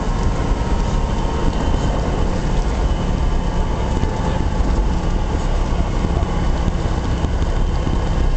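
Cessna 172SP's four-cylinder Lycoming engine at idle during the landing rollout, heard from inside the cockpit as a steady low rumble with a thin steady tone running through it.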